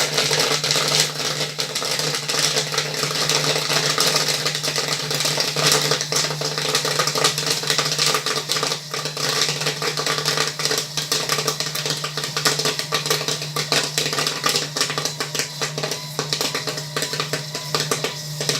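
Popcorn kernels popping thickly and continuously in a popcorn machine's kettle, a rapid crackle of many pops at once. Under it run a steady hum from the machine's small electric motor and the hiss of the gas stove burner.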